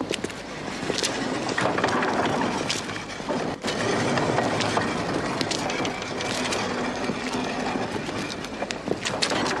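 Mine carts rolling on narrow-gauge rails, a steady rattling rumble with many short metallic clanks over it.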